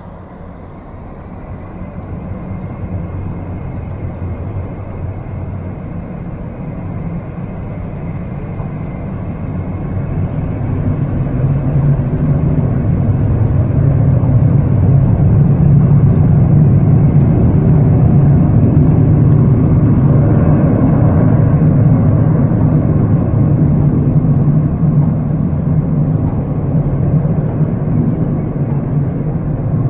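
Ilyushin Il-62M airliner's four rear-mounted Soloviev D-30KU turbofans: a deep jet rumble that grows louder over the first ten seconds or so and then holds loud.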